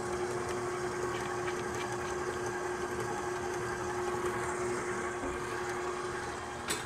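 KitchenAid Professional 6000 HD stand mixer running at a raised speed, its flat beater churning butter and powdered sugar into buttercream. The motor gives a steady, even hum with one constant tone, and there is a short click near the end.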